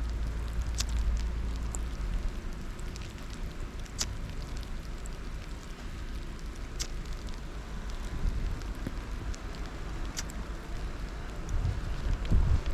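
Blizzard wind and blowing snow: a steady hiss with wind rumbling on the microphone, and a few sharp scattered ticks.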